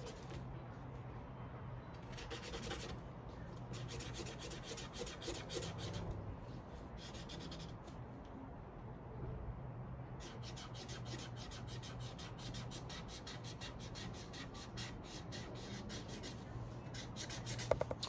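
Felt-tip marker scribbling back and forth on paper while colouring in: faint quick rubbing strokes, in short spells at first, then a steady fast run of strokes from about halfway.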